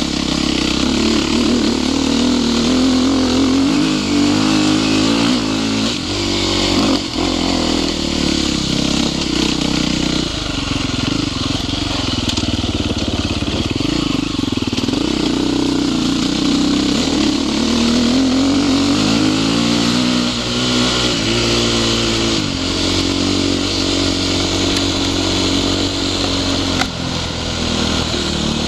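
Dirt bike engine running as it is ridden, its revs rising and falling continually with the throttle, under a steady rushing noise.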